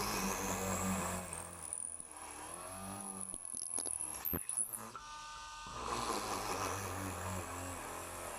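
Small DC electric motor of a homemade cordless mini drill running. It spins up with a rising whine and holds steady, stops about four and a half seconds in, then starts again with a rising whine about a second later.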